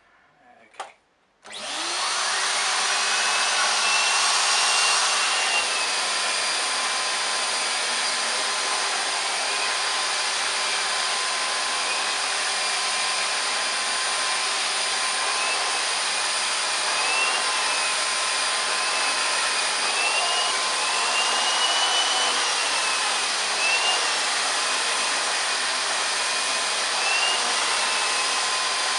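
Numatic Charles CVC370-2 wet-and-dry vacuum cleaner with a 1000-watt motor: a click, then the motor starts about a second and a half in, spins up and runs steadily. A high whine wavers up and down as the Airobrush turbo brush head is worked back and forth over carpet.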